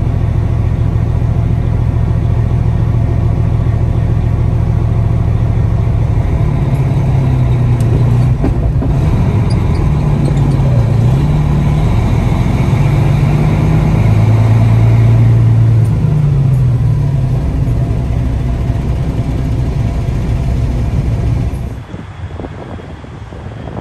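Heavy diesel semi-truck engine running at low speed, heard from inside the cab as a loud, steady low drone; its pitch rises and falls a little as the truck creeps forward in line. Near the end the drone cuts off abruptly to a much quieter background.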